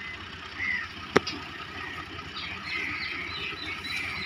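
Tractor engine running steadily, heard as a low rumble, with faint high chirps above it and one sharp click about a second in.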